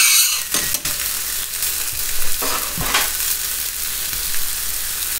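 Chicken breasts frying on a hot flat-top griddle under a grill press: a steady sizzle, with a few brief knocks in the first three seconds.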